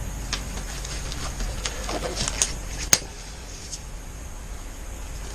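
Disposable gloves being pulled on by hand: scattered light rustles and clicks, with one sharp snap about three seconds in.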